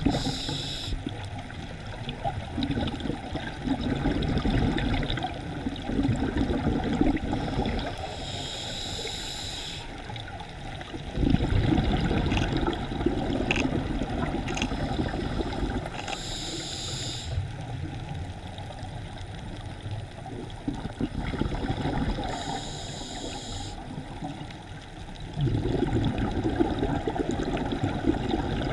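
Scuba diver breathing through a regulator underwater: a short hiss of the demand valve on each inhalation, four times, each followed by a few seconds of low bubbling and gurgling as the exhaled air leaves the regulator.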